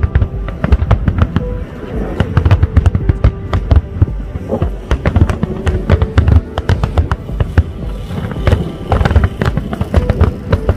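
Fireworks display: a rapid, continuous barrage of aerial shells bursting, dense cracks and booms one after another with crackling in between.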